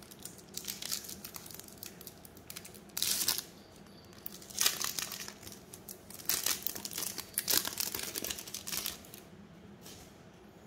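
Trading card booster pack wrapper crinkling and tearing as a pack is opened, in irregular rustling bursts, loudest about three seconds in and again from about five to nine seconds in.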